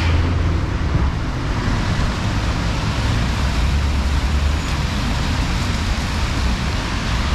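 City street traffic passing on a wet road: steady tyre and engine noise, with a deep low rumble that swells twice.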